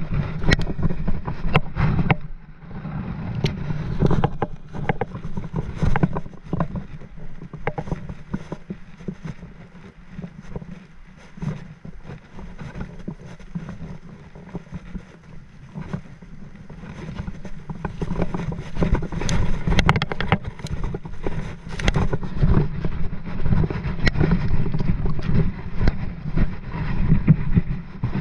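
Wind buffeting an action-camera microphone as a low, rough rumble that rises and falls, quieter in the middle stretch. Scattered sharp knocks and crunches of handling and movement on the gravel bank come through on top.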